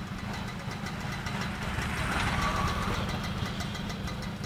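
Yamaha RX100's air-cooled two-stroke single-cylinder engine idling steadily with a fast, even pulse, a little louder about two seconds in.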